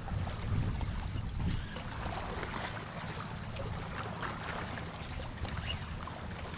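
An insect trilling in a steady high, pulsing buzz that breaks off briefly about four seconds in, over a continuous low rumble.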